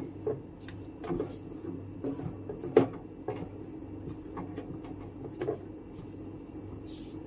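Scattered light clicks and knocks of kitchen utensils being handled, about a dozen at uneven spacing, the sharpest a little under three seconds in, over a steady low hum.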